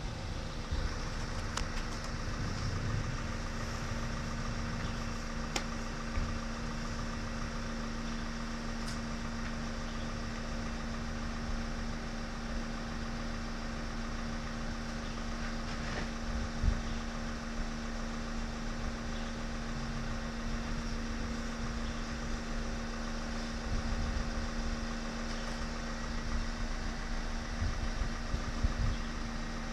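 Windscreen crack-repair unit's pump running with a steady hum, drawing through its hose to clean out the crack before the resin is injected. A few light knocks over it.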